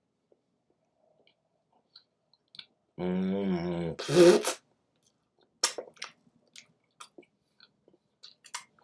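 Close-up mouth sounds of someone chewing a crunchy fried onion ring, with scattered small crunches and clicks. About three seconds in there is a hummed "mmm" lasting about a second, followed at once by a loud, short, breathy burst.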